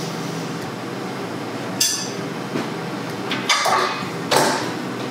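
A plate clinking and knocking against a microwave oven as warmed asparagus is taken out: three sharp knocks, the first about two seconds in, the last near the end, over a steady low hum.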